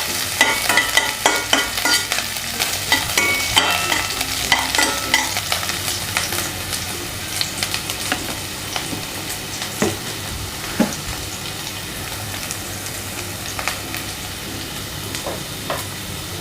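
Chopped ginger, garlic and green chillies sizzling in hot oil in a kadai on a low flame while being stirred. Frequent knocks and short rings against the pan in the first few seconds give way to a steadier sizzle with only an occasional knock.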